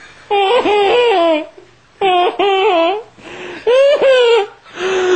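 Adult man wailing and sobbing in a high, baby-like voice: three drawn-out wavering cries about a second each, with a gasping breath before the third.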